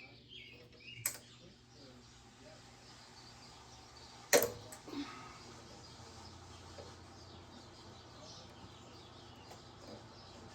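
A few sharp clicks and knocks from small mower parts being handled while the fuel line and its hose clamp are refitted, the loudest about four and a half seconds in.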